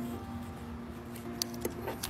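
Background music with held notes, and a few light clicks in the second half.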